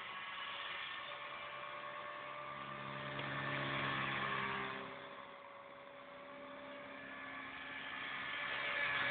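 Align T-Rex 250 electric RC helicopter in flight: the steady whine of its motor and rotor buzz. It grows louder, fades about halfway through, then swells again near the end as the helicopter moves away and comes back.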